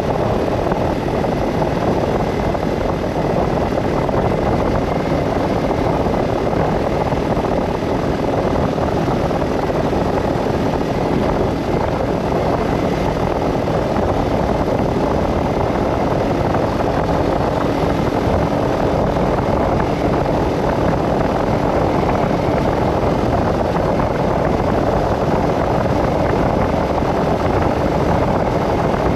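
Steady road, wind and engine noise from a vehicle driving along at an even speed, with no change in pace.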